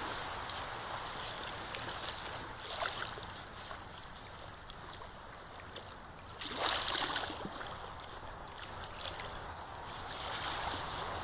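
German shepherd digging in damp sand, its paws scraping and flinging sand in scratchy bursts, the loudest a little past halfway. A steady rush of wind and water runs underneath.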